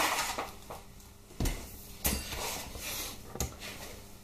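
Metal tools being handled and set down: a few separate knocks and clinks about a second apart, the loudest at the very start and about two seconds in.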